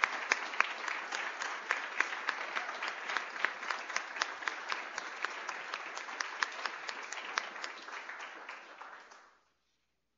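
Audience applauding, a dense patter of many hands clapping with individual sharp claps standing out; it dies away about nine seconds in.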